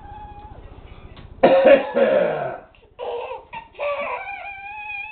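A man's loud fake cough about a second and a half in. It is followed by a young child's high-pitched squeals and laughter, ending in one long held squeal.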